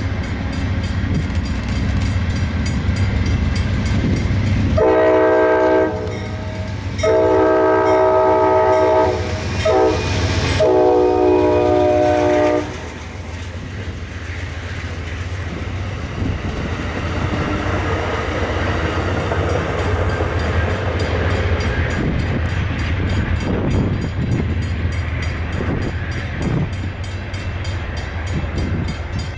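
Amtrak diesel passenger train passing through a station without stopping: the locomotive's engine drones as it approaches, and its horn sounds three times about five seconds in, the second blast the longest. Then the coaches' wheels rumble and tick steadily past.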